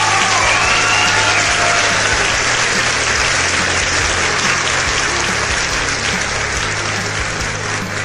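Audience applause: dense, steady clapping with a few cheers in the first second, easing off slightly toward the end.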